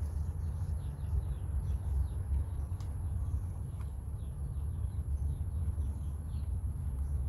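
Outdoor ambience: faint, rapid bird chirps over a steady low rumble and a thin, constant high-pitched whine.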